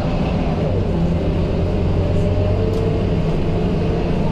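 Scania K230UB single-deck bus's Euro V five-cylinder diesel engine running steadily under way, heard from inside the passenger cabin: a low drone with road noise, and a faint higher whine over it.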